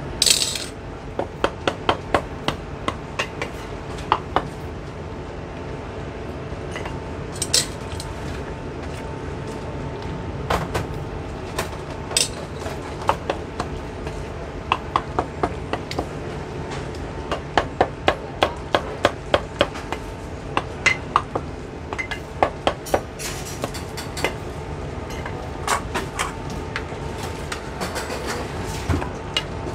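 Cleaver chopping braised beef offal on a thick round wooden chopping block: runs of quick, sharp chops, several a second, with pauses between, over a steady background hum.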